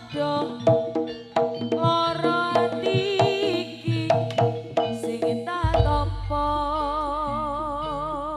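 Live jaranan music from an East Javanese ensemble: a melody line over sharp hand-drum strokes. A deep low stroke swells about five and a half seconds in, then a long wavering held note runs to the end.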